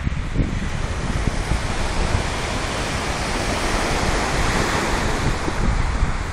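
Small waves breaking and washing up a shingle beach, swelling to a louder wash about four seconds in, with wind buffeting the microphone.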